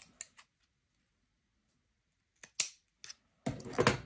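A few short clicks and rustles from hands working yarn into a knot, with a denser burst of rustling near the end.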